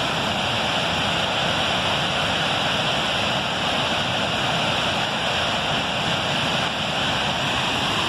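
Wide river waterfall pouring over rock into a foaming pool: a steady, even rush of falling water.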